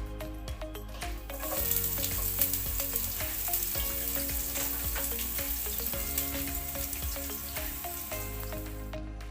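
Onions sizzling in hot olive oil in a frying pan, the sizzle starting about a second in and stopping near the end, with soft background music underneath.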